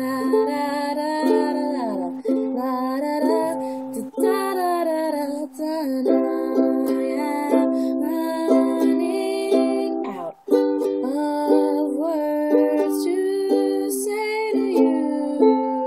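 Ukulele strummed in steady chords, broken by a few brief pauses, with a woman's voice singing along in several stretches.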